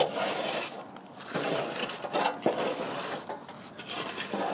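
A shovel blade scraping through hot charcoal briquettes and ash in repeated strokes, the loose coals clinking and rattling, as the coals are pulled back from the base of the trash can.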